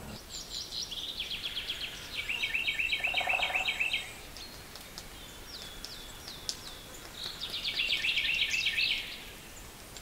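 Northern cardinal singing: a run of quick repeated whistled notes for the first few seconds, a few single slurred notes in the middle, and another rapid run near the end.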